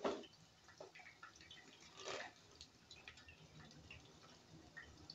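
Quiet drips and small clinks as fried potato cubes are scooped out of the oil with a metal spoon and dropped into a paper-lined dish, with a sharper knock at the start and another about two seconds in.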